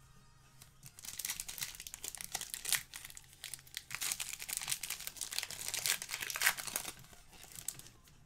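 Foil trading-card pack wrapper crinkling and tearing as it is ripped open by hand, a dense crackle from about a second in until about a second before the end, with a couple of sharper rips along the way.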